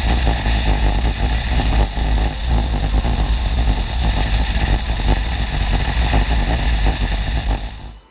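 BMW R1150GS Adventure motorcycle ridden at a steady cruising speed on a corrugated gravel road: the boxer-twin engine runs under a steady rush of wind and road rumble. The sound cuts off suddenly near the end.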